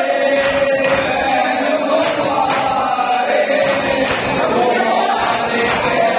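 Crowd of men chanting a noha (Muharram lament) together, with steady rhythmic chest-beating (matam), about two beats a second.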